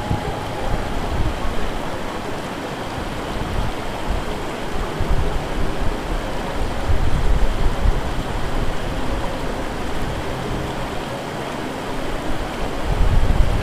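Steady rush of fast-flowing river water. Low gusts of wind buffet the microphone now and then, most strongly near the end.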